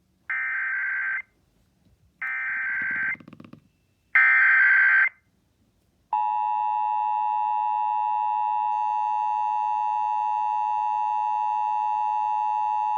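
Emergency Alert System weekly test signal: three one-second bursts of SAME digital header data tones with short gaps between, then a steady weather-radio warning alarm tone at about 1 kHz starting about six seconds in.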